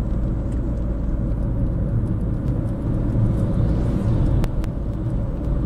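Steady engine and tyre rumble heard from inside a moving car's cabin, with the whoosh of an oncoming lorry going by about four seconds in, and two sharp clicks just after.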